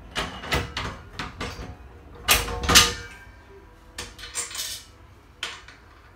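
Metal clinks and clunks of a motorcycle carrier rack's J-hook assembly being fitted by hand against the crossbar: a run of knocks, the loudest pair about two seconds in, then a few lighter ones.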